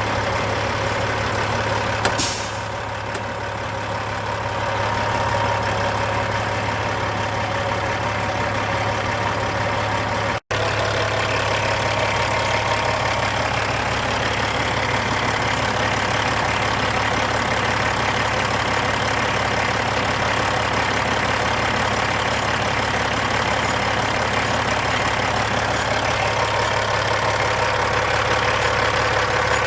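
Freightliner truck's diesel engine idling steadily, running to build air pressure for an air-powered train horn. A short sharp hiss comes about two seconds in.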